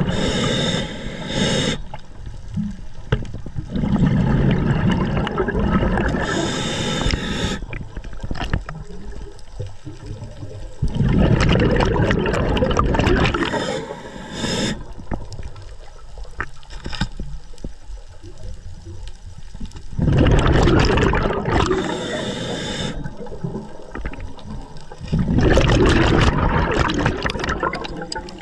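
Underwater rushing and bubbling recorded with the camera below the surface, coming in surges every five to eight seconds, some with a brief high hiss, with quieter water noise between them.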